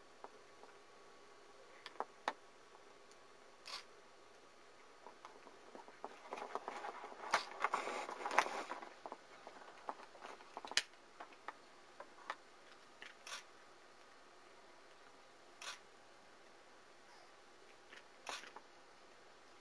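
Camcorder handling noise over a faint steady hiss: scattered small clicks, and a few seconds of rustling and scraping near the middle as the camera is moved.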